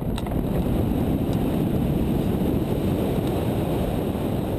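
Wind rushing over the microphone of a camera mounted on a hang glider's wing as the glider leaves the ramp and flies: a steady, deep rushing noise made by the glider's airspeed.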